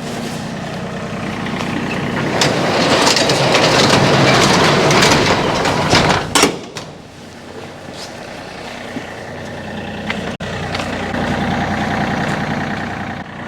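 Vehicle engine running, with rattling and crunching noise that builds over the first six seconds and ends in a sharp knock. After that the engine runs on more quietly and steadily.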